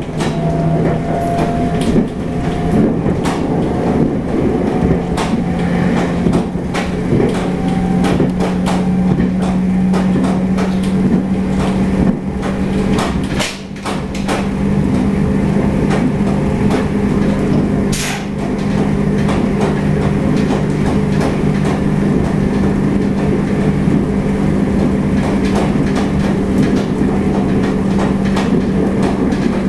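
Local passenger train running at speed, heard from inside the carriage: a steady low hum under a constant rumble, with irregular clattering and knocking from the wheels and rattling fittings.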